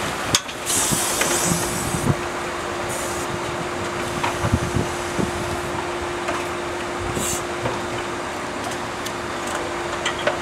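Steady machine hum holding one constant tone, over a rushing noise of moving water and wind, with a few light knocks.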